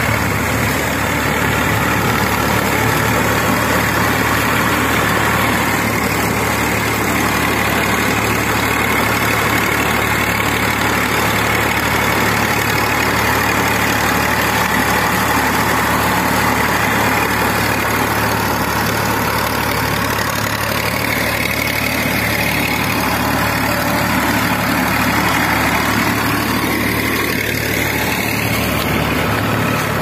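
Massey Ferguson 241 tractor's three-cylinder diesel engine running steadily under load, driving a rotavator through wet paddy-field mud.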